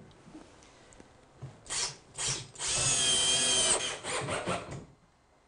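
Cordless drill/driver driving a 1¼-inch pan-head screw to join the face frames of two base cabinets: two short bursts of the motor, then a steady run of about a second as the screw goes in.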